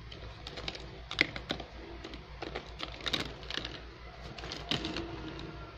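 Hard plastic interlocking toy pieces clicking and clattering against one another as they are handled and put back among other pieces in a bag. The clicks come irregularly, with the sharpest about a second in and again around three and five seconds in.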